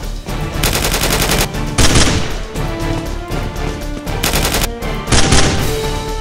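Rapid bursts of gunfire, twice, each followed by a single heavier, louder blast, over background music.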